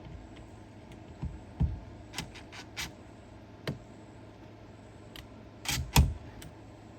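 Scattered clicks, knocks and scrapes of hands working outlet hardware and tools at an exterior electrical box, with a quick run of small clicks a couple of seconds in and the two loudest knocks close together near the end.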